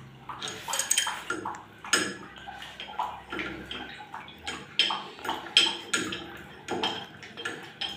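Adjustable wrench clinking and scraping against the chrome valve fitting of a wall mixer tap as it is set on and turned to loosen it: a string of irregular metallic clicks and clinks.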